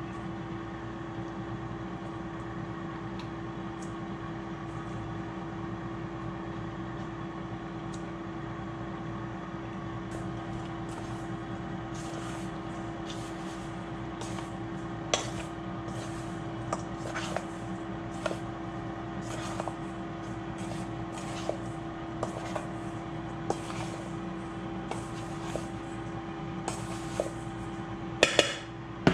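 Fish fillets being tossed by hand in seasoned fish-fry breading in a stainless steel bowl: scattered soft rustles and light clinks against the bowl, growing more frequent after the first several seconds, with a few louder clinks near the end. Under it runs a steady hum from a kitchen appliance fan.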